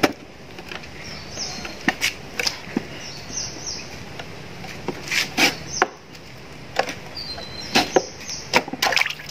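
Hand-press French fry cutter working on a potato: a series of sharp knocks and clicks, some in quick pairs, as the potato is set in and pushed through the blade grid into strips.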